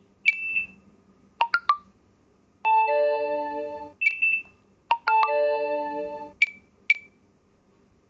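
Electronic beeps and chime tones. First a short ringing beep, then a quick run of three blips. Then come two sustained chord-like tones of about a second each, with single short beeps between and after them.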